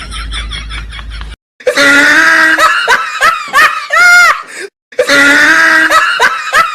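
Laughter trailing off, then a loud edited clip of a high, wavering, screaming voice. The clip plays twice, identically, with a brief silence before and between.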